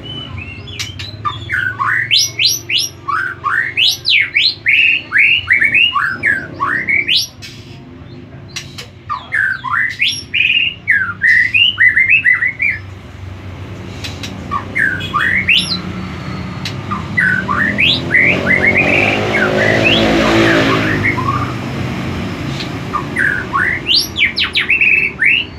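White-rumped shama (murai batu) singing in full song: loud, fast runs of rising and falling whistled notes in several phrases with short pauses between. A noise swells and fades behind the song about two-thirds of the way through.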